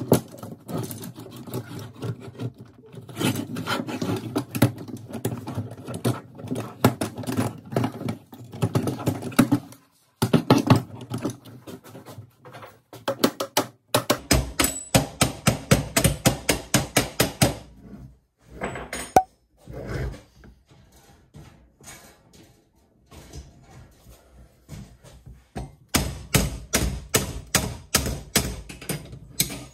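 Ratchet wrench clicking as bolts on an aluminium chainsaw mill frame are tightened, in runs of quick, even clicks about four a second, with metal knocks and clunks of the frame being handled in between.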